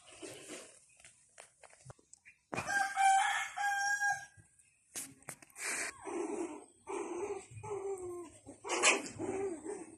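Animal calls: one drawn-out, pitched call in the middle, then a quick run of short calls about twice a second.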